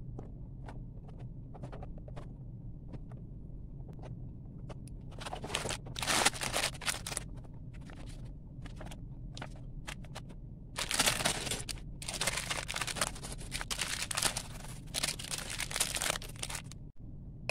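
Clear plastic bags of Lego pieces crinkling and rustling as they are handled and pulled open, with scattered light taps in the first few seconds. The loudest crinkling comes about five to seven seconds in and again from about eleven seconds until shortly before the end.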